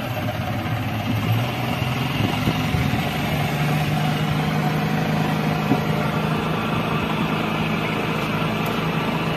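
Boat engine running steadily while the boat is under way, its low hum rising a little in pitch a few seconds in.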